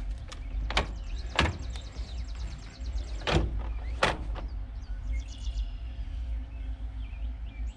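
Haswing Cayman trolling motor being swung up from deployed and stowed on its bow mount: four sharp clunks as the shaft and mount knock into place, with a quick run of light clicks between the first knocks. Steady low wind rumble on the microphone.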